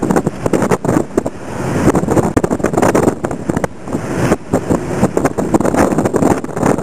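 Road and engine noise of a moving car, heard from inside the vehicle, with a dense, uneven crackle of rattles and knocks. The rattles ease off for a couple of seconds in the middle, leaving a smoother rushing noise.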